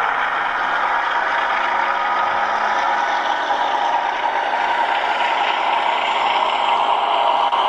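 Diesel engine sound played by a Zimo sound decoder through the two 10x15 speakers of a Piko H0 model of a DB class 216 diesel locomotive, running steadily and getting a little louder near the end as the model approaches.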